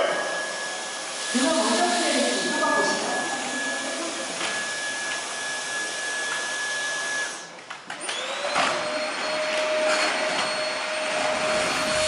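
Dyson vacuum cleaners running: a motor with a steady high whine over the rush of airflow. About eight seconds in, the sound dips briefly, then a motor spins up with a rising whine that settles into a lower steady tone.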